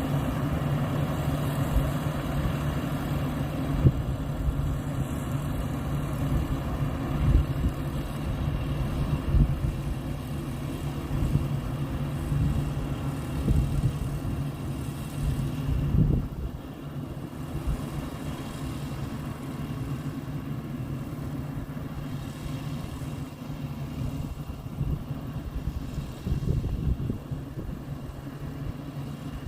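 Rice combine harvester engine running steadily, with a low hum that drops in level about halfway through.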